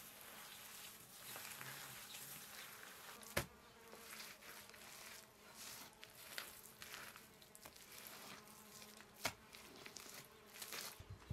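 Hands working and pressing a wet mud-and-straw mix, quiet and soft, with an insect buzzing and two sharp clicks, one a few seconds in and one near the end.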